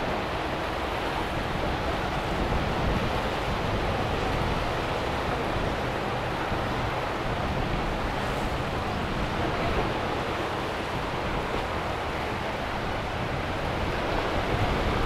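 Steady rush of breaking waves and surf mixed with wind buffeting the microphone.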